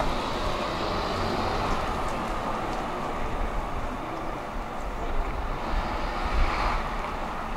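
Steady low rumble of urban background noise, with no single sound standing out.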